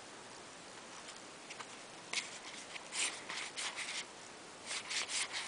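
Yu-Gi-Oh trading cards sliding and rubbing against one another as they are flipped through in the hand: a string of short, soft scraping rustles, starting about two seconds in.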